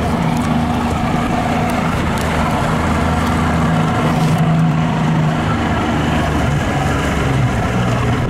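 Small boat's motor running steadily at an even speed.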